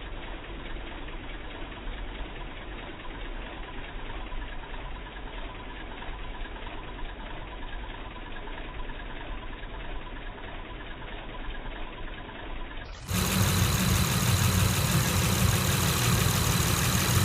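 2006 Honda Accord's 3.0-litre V6 idling roughly with a small misfire that makes the engine shake, which the owner has been told could be the crank sensor. About 13 seconds in, the sound suddenly becomes louder and fuller, with a stronger low rumble.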